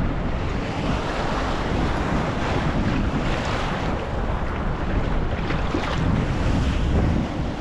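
Wind buffeting the microphone with a steady low rumble, over ocean water washing and slapping around a fishing kayak on choppy sea.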